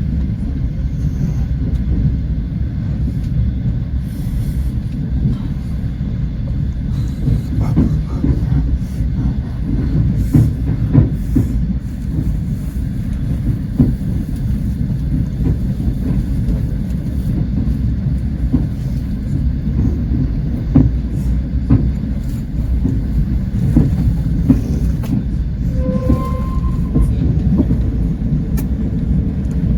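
Passenger train coach running at speed: a steady low rumble of wheels on rails with occasional clicks of wheels over rail joints.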